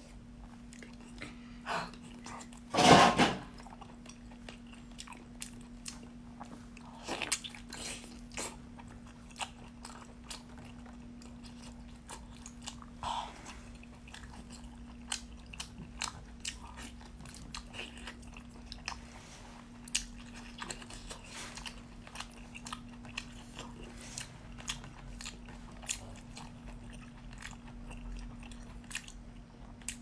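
Close-up chewing and biting of a whole octopus: many short, wet clicks and smacks at the mouth, with one much louder bite or slurp about three seconds in. A steady low hum runs underneath.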